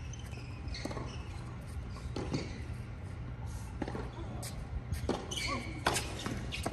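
Tennis ball bounced a few times on a hard court before a serve, then struck by the racket near the end, the loudest knock, over a steady low background hum.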